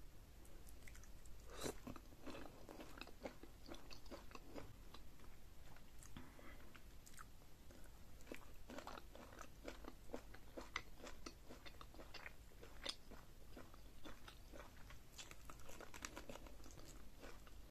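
Close-miked eating: biting and chewing a shrimp coated in chili butter sauce, with many small wet clicks and crackles from the mouth and fingers throughout.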